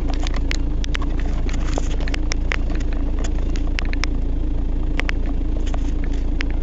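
A vehicle driving over beach sand, heard from inside the cabin: a steady engine drone with a constant low rumble. Frequent irregular clicks and rattles run throughout.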